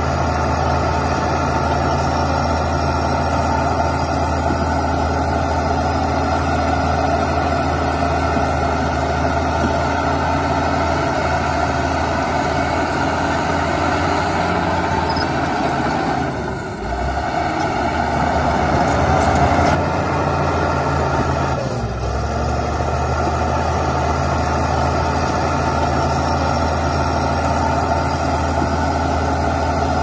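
Heavy diesel earthmoving machinery engine running steadily with a constant low drone. It breaks off briefly about 17 seconds in, runs louder for a few seconds, then dips again around 22 seconds before settling back to the same steady running.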